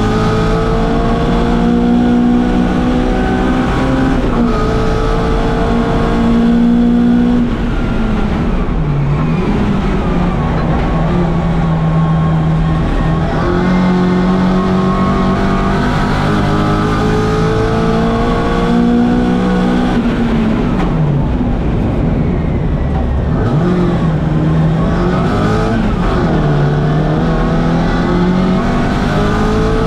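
1964 Mini Cooper S's four-cylinder A-series engine run hard under racing load, its pitch climbing steadily through each gear and dropping at every upshift. Twice the revs dip sharply and climb back, as when lifting off and changing down for a corner.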